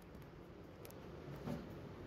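Quiet indoor room tone with a few faint ticks a little under a second in and a soft bump about one and a half seconds in.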